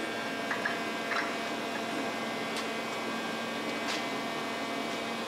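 Steady mechanical hum holding several fixed tones, with a few light clicks and taps as heavy steel plates are handled and set in place.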